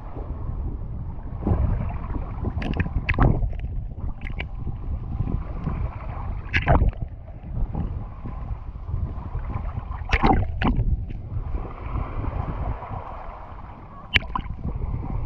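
Small sea waves lapping and splashing over a microphone at the waterline, half under the surface: a steady muffled low rumble broken by sharp splashes every few seconds, the last one near the end.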